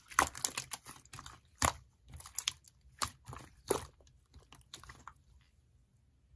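Irregular crisp crunches and clicks, several a second, fading out about five seconds in.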